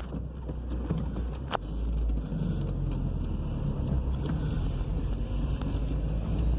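Volkswagen Gol Power's EA111 1.6 engine pulling away at low revs in first gear under the extra load of the air conditioning, running steadily without a misfire. A single sharp click about a second and a half in.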